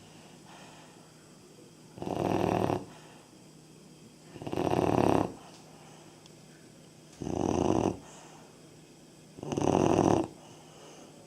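A 3.5-month-old Labrador retriever puppy snoring: four snores, one about every two and a half seconds, with quiet gaps between them.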